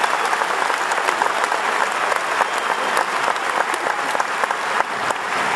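Large theatre audience applauding steadily, dense clapping greeting a comedian as he walks on stage.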